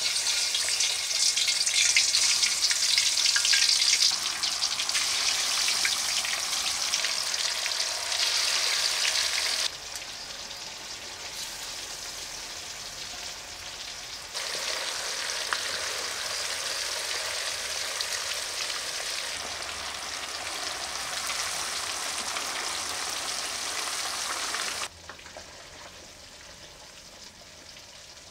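Fish frying in hot oil in a steel wok, a dense sizzle loudest as the fish goes into the oil. The sizzle drops suddenly about ten seconds in, swells again a few seconds later, and falls off sharply near the end.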